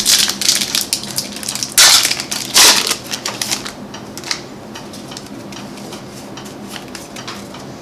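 Foil wrapper of a Pokémon card booster pack being torn open and crumpled by hand, crackling, with two loud crinkles about two seconds in. The crackling dies down after about three and a half seconds.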